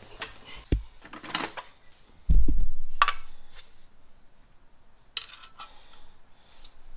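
Scattered metallic clinks and knocks of hand tools and parts against the underside of a car's engine, with one heavy dull thump a little over two seconds in that dies away over about a second.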